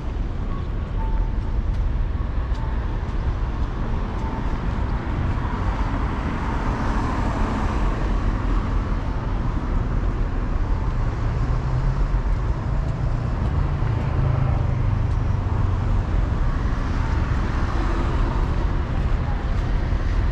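Steady road-traffic rumble on a city street, swelling for a few seconds around the middle as vehicles pass.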